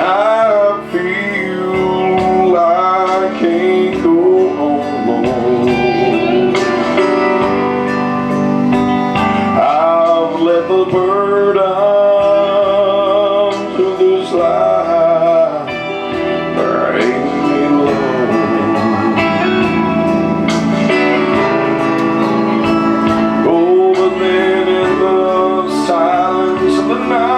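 Gospel worship music: sustained instrumental chords under a wavering melody line, with singing, continuous and steady in loudness.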